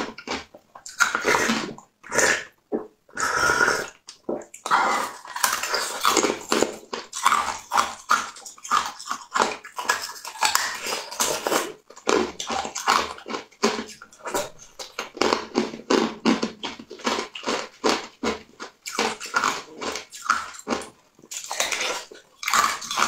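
Close-up eating of a soft jelly sweet: wet squelching, smacking and sucking mouth sounds in quick irregular bursts, with short pauses.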